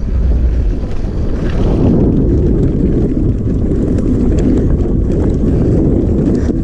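Mountain bike riding a dirt trail, heard through a GoPro: loud, steady wind buffeting on the camera's microphone over tyre rumble, with scattered faint clicks and rattles.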